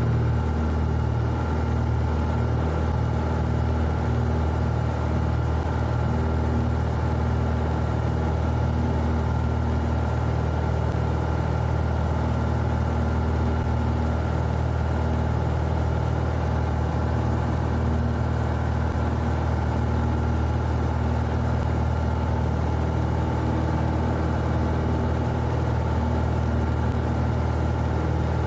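Cessna 172E's Continental O-300-D six-cylinder engine and propeller droning steadily from inside the cabin during the climb-out just after takeoff, with no change in pitch.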